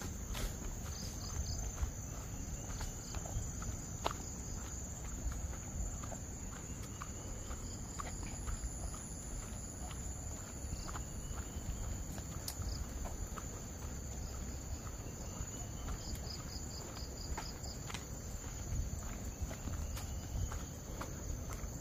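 Steady high-pitched insect chorus, with the walker's footsteps tapping irregularly beneath it.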